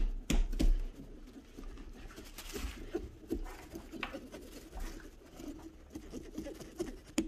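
Small serrated pumpkin-carving saw sawing through pumpkin rind in short, irregular scraping strokes, with a few louder knocks in the first second.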